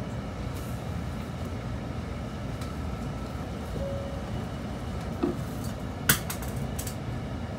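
Steady low rumble of a train running, heard from inside a passenger carriage, with a couple of sharp clicks, the louder about six seconds in.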